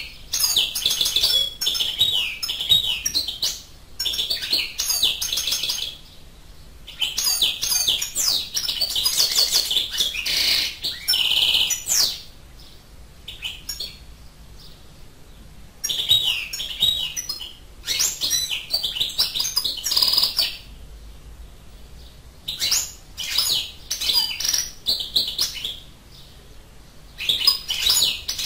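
European goldfinch singing: quick, high twittering phrases a few seconds long, broken by short pauses, about five phrases in all.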